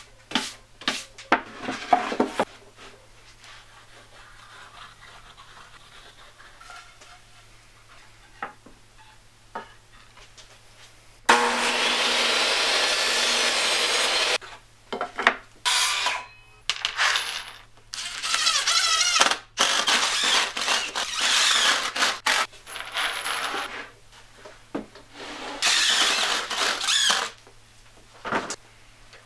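A series of workshop sounds: a hand brush scrubbed in quick strokes across a wooden board, then a benchtop table saw running for about three seconds, followed by irregular bursts of scraping and rasping on wood.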